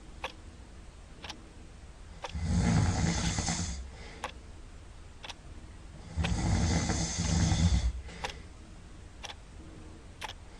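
Loud snoring from a sleeper: two long snores about four seconds apart, each lasting a second and a half or more. Light ticks sound about once a second throughout.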